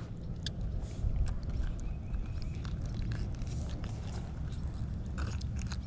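Low rumbling noise on the microphone, with scattered light clicks and scrapes of handling.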